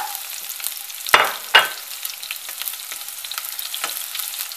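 Chopped onions and garlic sizzling in oil in a frying pan as they are stirred with a silicone spatula, with a steady hiss and small crackles. A little over a second in come two loud clattering strokes as the spatula scrapes the onions out of a bowl against the pan.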